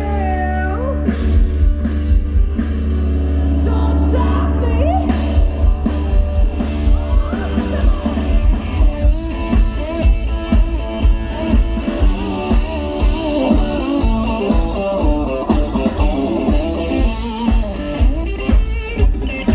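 Live rock band playing through a PA: electric guitar, bass, drum kit and a singer. A held bass note carries the first few seconds, then a steady drum beat of about two hits a second drives the rest.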